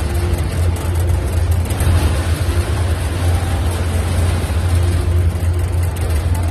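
Boat engine running steadily with a deep, even hum, under a constant rushing noise.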